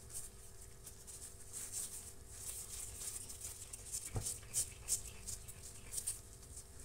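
A hand mixing and pressing pempek dough into dry flour in a metal bowl: a run of short scratchy rustles, with one sharp knock about four seconds in.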